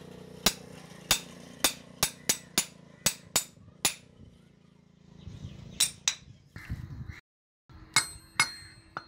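Hammer striking the end of a steel air compressor shaft to knock it and its ball bearing out of the cast housing: sharp metal-on-metal clinks, about nine blows in the first four seconds, two more a little later, then a few more after a short break near the end.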